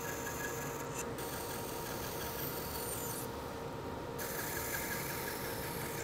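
Bandsaw running, its blade cutting relief cuts through layered plywood beneath an MDF template: a steady rasping hiss over the machine's steady hum.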